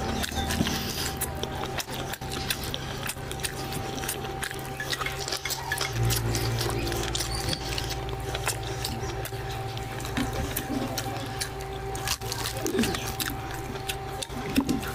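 Close-miked eating sounds: wet chewing, sucking and lip-smacking as meat is pulled from a curried mutton head by hand and eaten, many small clicks throughout. Steady low background music plays underneath, its chord changing about halfway through.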